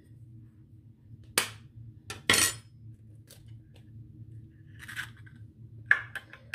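An egg cracked against the rim of a plastic mixing bowl: two sharp knocks about a second apart, the second one breaking the shell, followed by lighter rustles and clicks of the shell near the end.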